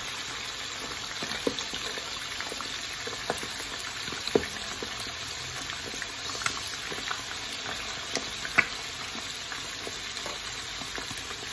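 Marinated chicken pieces deep-frying in hot oil: a steady sizzle, broken by a few sharp clicks. The loudest click comes a few seconds before the end.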